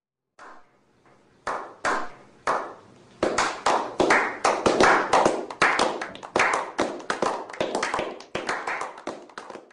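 A slow clap from a small group of people: a few single hand claps with pauses between them, quickly joined by more clappers into faster, louder applause. The applause then thins out near the end.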